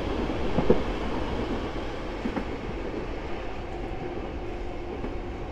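Vectron-hauled passenger train rolling past, its wheels clicking over rail joints a few times near the start. The steady rumble eases slightly as the last coaches go by.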